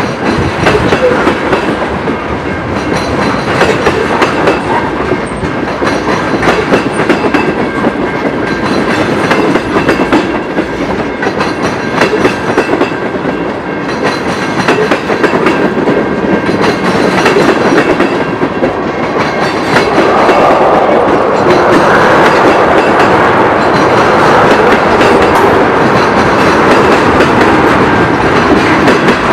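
Freight train of LPG tank cars rolling past, the steel wheels clicking over the rail joints in a steady clatter. It grows louder about two-thirds of the way through.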